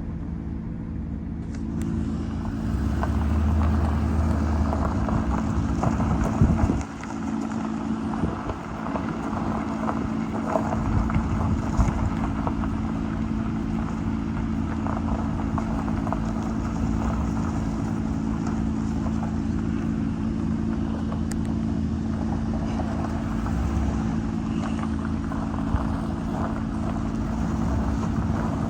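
A motor vehicle's engine running steadily, with a low drone and some wind noise on the microphone; it dips briefly about seven seconds in.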